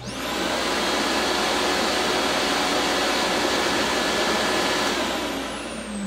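NuTone VX550 central vacuum power unit switched on: the motor spins up with a rising whine and runs steadily, then winds down with a falling whine near the end. Its built-in muffler keeps the noise a lot lower than most central vacuums.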